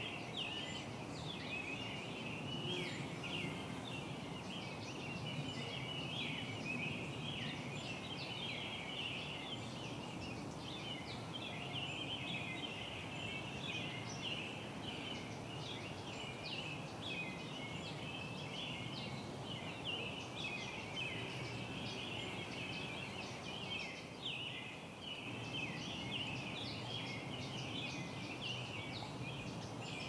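Many small birds chirping and chattering together in a dense, unbroken morning chorus, over a steady low background noise.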